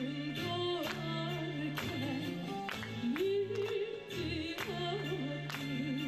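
A woman's voice singing a slow rebetiko zeibekiko song, the melody sliding and wavering, over instrumental accompaniment with held bass notes and evenly spaced plucked strokes.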